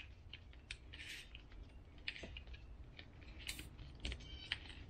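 Faint plastic clicks and scrapes from a Honda GX390 recoil starter as its pulley is turned by hand against the recoil spring, winding the spring up before the new cord goes in. A quick run of ticks comes about four seconds in.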